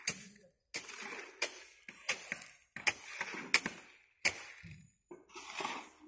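Shovels scraping and slapping through a heap of wet concrete being mixed by hand, with sharp strokes coming every half-second to second. The sound breaks off abruptly to silence a few times.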